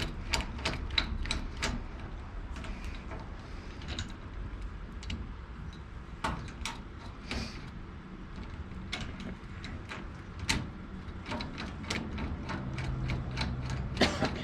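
Hand rivet nut tool being handled and threaded: scattered short metallic clicks and ratchety rattles, busiest in the first couple of seconds and again near the end. A low hum comes in near the end.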